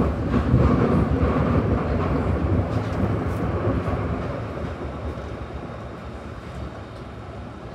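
Glasgow Subway train running through the tunnel, heard from inside the carriage: a steady low rail rumble that gradually dies down over the second half.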